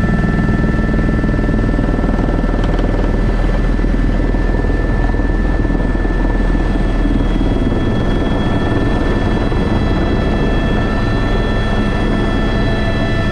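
Airbus H125 helicopter in flight: its turbine engine whines steadily over the noise of the rotor, heard from inside the cockpit.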